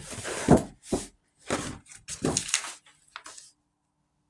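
Rustling and handling of a package's wrapping in several short noisy bursts, with a light thump, stopping about three seconds in.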